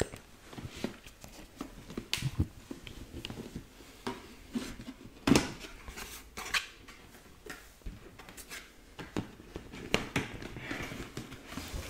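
Long fingernails tapping and scratching on a cardboard gift box, then the box being tipped and handled, with scattered knocks and rustles. The loudest knock comes about five seconds in.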